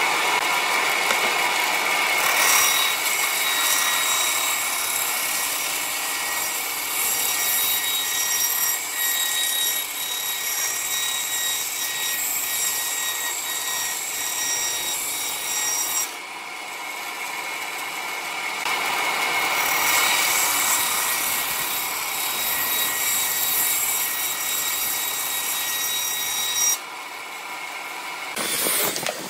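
Vertical bandsaw running and cutting through a wooden board in two long cuts, a steady machine whine over the rasp of the blade in the wood. It eases off between the cuts and stops near the end.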